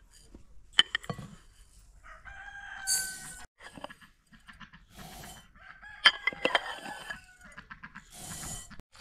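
A rooster crows twice, each call about a second long. Over it, dry rice grains pour from a cup into a glass bowl in short hissing runs, with a couple of sharp clinks of the ceramic cup against the glass bowl.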